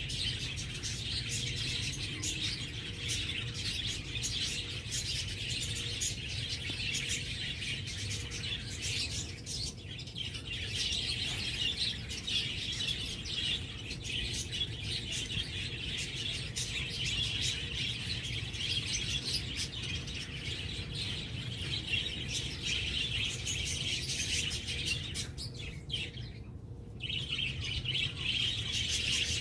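Many small birds chirping continuously in a dense, overlapping chorus, with a steady low rumble beneath; the chirping briefly thins out near the end.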